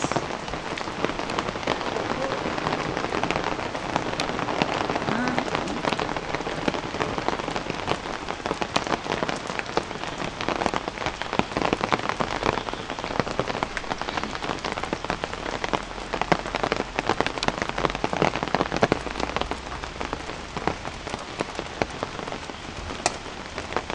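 Steady rain falling on a building site, a dense patter of many drops on hard wet surfaces.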